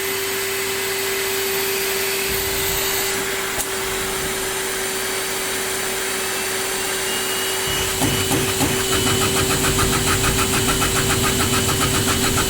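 CNC machine running, with a steady single-pitch whine over a hiss. About eight seconds in, a heavier rumble with a fast, even pulsing joins.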